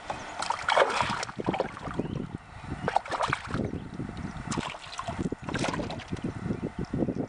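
Irregular knocks, rustles and light splashes from handling rod, line and a freshly caught crappie aboard a kayak, with a cluster of louder clatters about a second in and more between three and six seconds.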